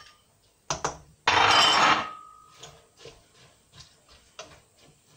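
Broccoli tipped from a bowl into a stainless steel pot of curry sauce. A couple of sharp clinks come first, then a loud rushing clatter of under a second about a second and a half in, with a ringing note after it. Soft knocks of a wooden spoon stirring follow.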